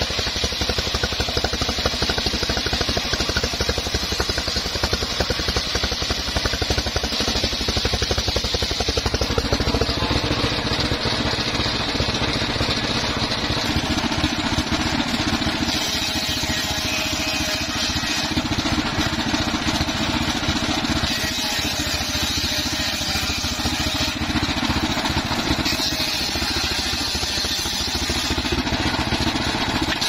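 Engine-driven homemade circular sawmill running steadily, its large blade ripping teak lengthwise into rafters. The sound of the cut changes about ten seconds in, as the work moves from the log to sawing boards.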